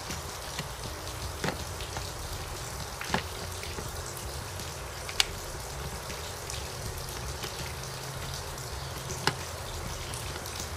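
About four sharp clicks, spread out, as plastic parts of an outboard motor's ignition timer base are handled by hand, over a steady background hiss.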